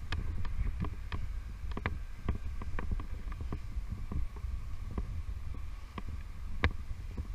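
Abseil descent down a tall tower wall: a low wind rumble on the body-worn camera's microphone, with irregular sharp clicks and taps from the abseiler's boots and rope gear, about two or three a second, one louder near the end.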